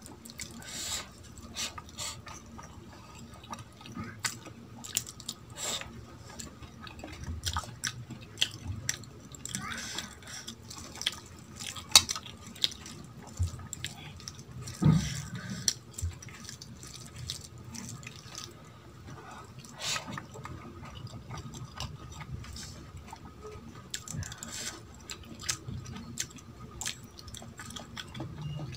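Bare hand mixing rice and dal on a steel plate: wet squishing with irregular clicks and taps of fingers against the metal, and a couple of louder knocks.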